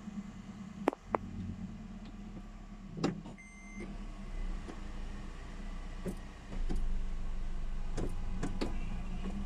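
2008 Toyota Premio's engine running with a steady low hum that gets louder about seven seconds in. Several sharp clicks and one short electronic beep sound over it.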